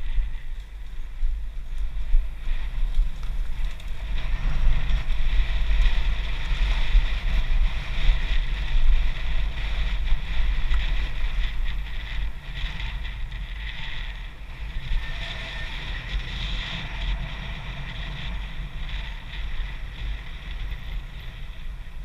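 Wind buffeting an action camera's microphone on a downhill mountain bike, a low rumble with a steady hiss of tyres rolling over a dirt and gravel path. It is loudest in the middle stretch and eases off over the last several seconds as the bike slows.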